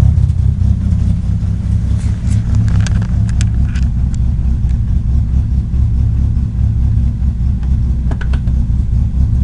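Car running with a steady low rumble, its transmission making a grinding noise that the owner wonders is a sign of low transmission oil. A few light clicks come through in the middle and again near the end.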